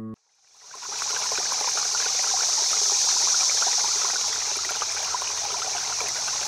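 Flowing stream water, a steady rushing and trickling that fades in over the first second.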